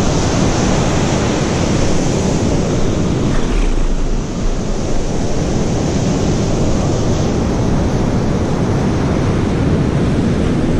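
Ocean surf washing onto a sandy beach, a steady loud rush, with wind buffeting the microphone.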